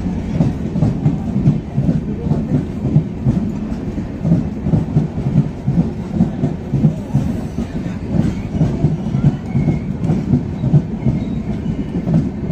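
Passenger train coaches rolling past a platform, with a steady rumble and wheels knocking over the rail joints in a running clickety-clack.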